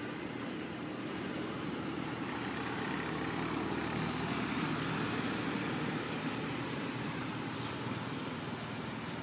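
Steady background noise: a low rumble with a hiss over it, unchanging throughout, of the kind distant road traffic makes.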